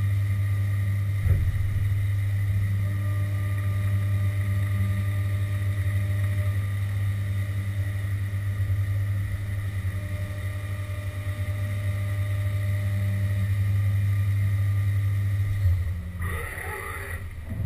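Haas VF2 CNC mill running with a steady hum and a faint high whine, and a brief knock about a second in. Near the end the hum changes and a short, noisy burst sounds.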